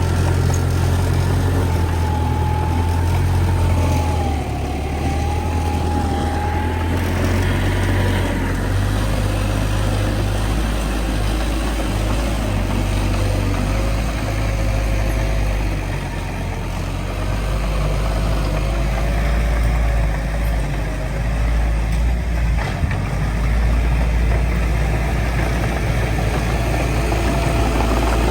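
Heavy diesel engine of an earthmoving machine running with a steady, deep drone, swelling and easing slightly a few times as the load changes.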